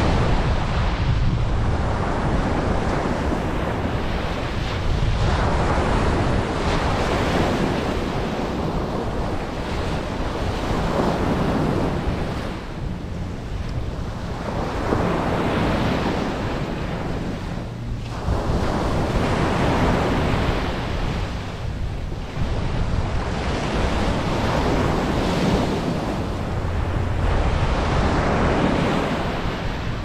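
Ocean surf breaking and washing up a sandy beach, a continuous rush of foam that surges and eases every few seconds as each wave comes in, with a low rumble of wind on the microphone.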